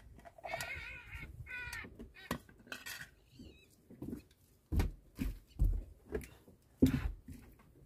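A string of sharp knocks and clatters from hard objects being handled, the loudest about five and seven seconds in, with a brief wavering high-pitched call near the start.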